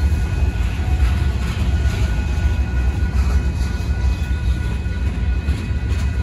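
Freight cars rolling slowly past on the rails, a steady low rumble of wheels and cars, with faint steady higher tones over it.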